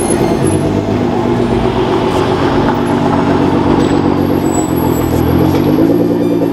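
Nissan GT-R R35's twin-turbo V6 idling through a loud aftermarket exhaust, its revs rising briefly and falling back near the end.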